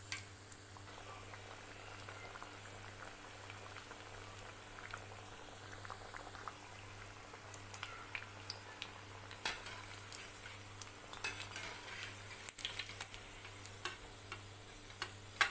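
Cutlets deep-frying in hot oil in a kadhai: a steady bubbling sizzle with scattered crackles and pops that come more often in the second half, and a sharp metal click of the slotted spoon near the end.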